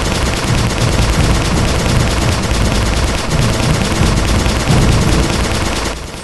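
Sustained automatic gunfire: a long, dense stream of rapid, overlapping shots that cuts off suddenly about six seconds in.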